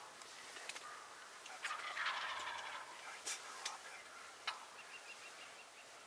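Wild turkey tom gobbling about two seconds in, a rattling call lasting around a second. A few short sharp clicks are scattered through the rest.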